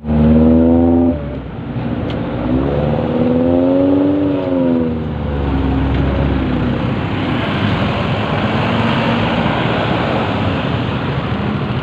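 Motor traffic passing close by: vehicle engines, one rising then falling in pitch about three seconds in, then a loud rush of engine and tyre noise that builds from about six seconds in as vehicles go past.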